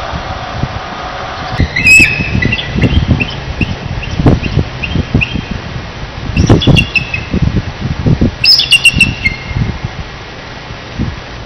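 Bald eagles calling from near the nest: three bouts of high, thin chattering notes, about two, six and a half and eight and a half seconds in. Gusts of wind buffet the microphone throughout.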